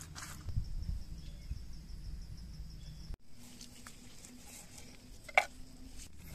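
Hands mixing a wet spice paste on a leaf, with soft irregular handling sounds under a steady high insect call. After a cut, a knife cuts a lime on a wooden board, with one sharp tap of the blade on the board a little after five seconds in.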